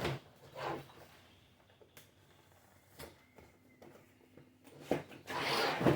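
Cardboard snack box being handled and opened: a few scattered clicks and taps, then louder rustling and scraping of cardboard and packaging for the last second or so.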